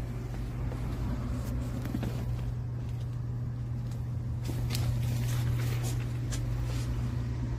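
A steady low hum, with scattered light clicks and rustles over it and a brief patch of hiss a little past the middle.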